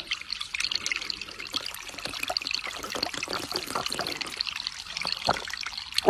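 Water trickling and gurgling steadily, in small irregular splashes.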